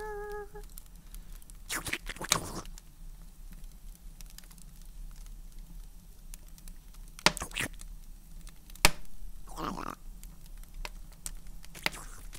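A held musical note ends about half a second in. Then scattered short rustles and clicks, a few at a time, sound over a low steady electrical hum.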